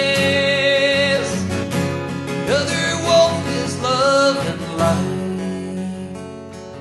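Live folk song: acoustic guitar with a male singer's voice, a sung note held through the first second, then shorter melodic phrases, the music thinning out and getting quieter near the end.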